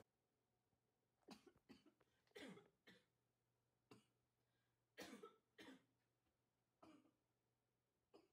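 Near silence: quiet room tone with a low hum, broken by about seven faint, short background sounds, several of them falling in pitch.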